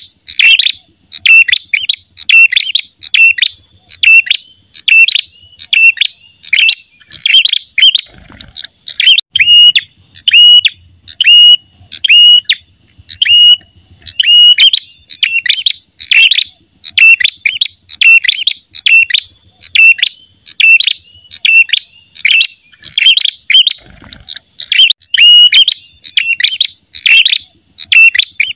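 Ashy tailorbird giving its aggressive fighting call: a loud, unbroken series of short, sharp, clear notes, about two a second.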